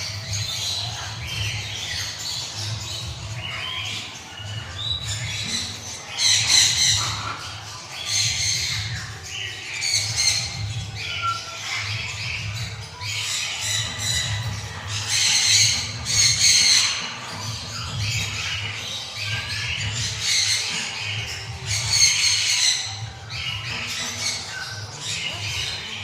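Citron-crested cockatoo giving harsh, repeated screeches, a burst every second or two, the loudest about six, fifteen and twenty-two seconds in, over a low steady hum.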